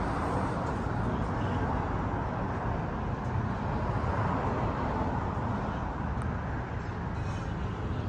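Steady road traffic noise from cars passing on a nearby street.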